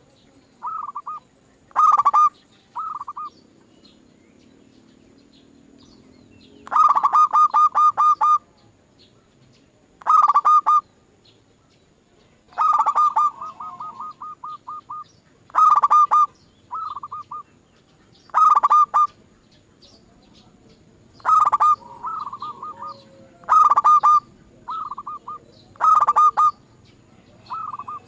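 Zebra doves (perkutut) cooing: short phrases of quick, rolling coo notes repeated every two to three seconds, loud phrases alternating with fainter answering ones.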